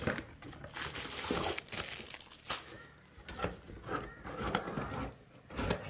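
Plastic packaging crinkling and a cardboard box rustling as a toy doll and bicycle set is lifted out by hand, with scattered light clicks and taps.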